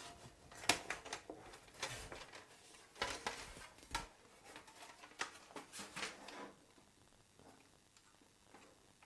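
Irregular small clicks, taps and rustles of a lighting barn-door set being handled, its leaves and fittings knocking; the handling stops about six and a half seconds in.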